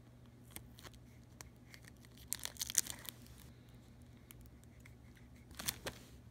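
Black vinyl electrical tape and the smart film's plastic layer being handled and pressed down: crinkling, tearing crackles. The loudest burst comes a little over two seconds in, with another short burst near the end.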